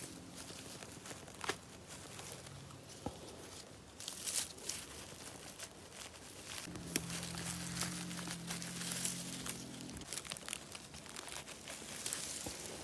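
Close rustling and crinkling with scattered crackles, denser in two patches, as of leaves, undergrowth or a plastic bag being handled while picking mushrooms. A low steady hum sounds briefly near the start and again for a few seconds past the middle.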